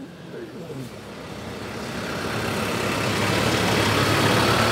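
A tractor engine running as the tractor drives closer, getting steadily louder. A faint steady whine joins in near the end.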